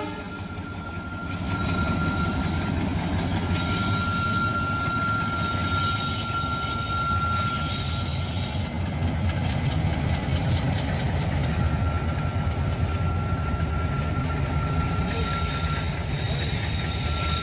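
Two Indian Railways diesel locomotives hauling a freight train of tank wagons pass by, their engines running with a steady low rumble that swells about a second and a half in and then holds. A thin high squeal comes and goes over it.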